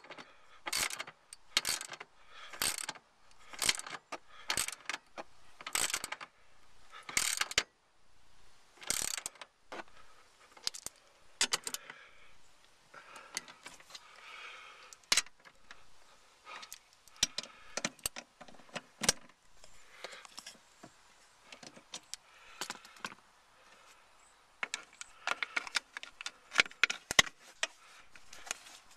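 Socket ratchet wrench clicking in repeated strokes as bolts are tightened down, about one stroke a second at first. Sparser, softer handling noises follow, then a quicker run of strokes near the end.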